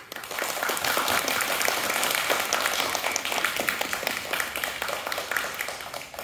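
Applause from a roomful of people: many hands clapping together, starting all at once and dying away near the end.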